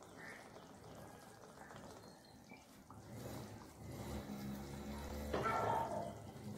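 Sesame oil poured in a thin stream into a small pan, faint liquid trickling. A low hum rises about three seconds in, with a brief louder noise near the end.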